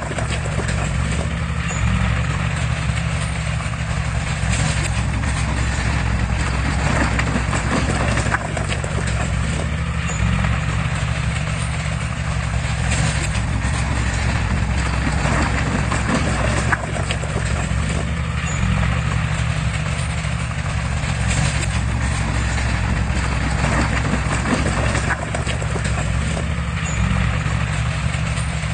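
Heavy diesel earthmoving machinery running steadily under load, with scattered metallic clanks and knocks.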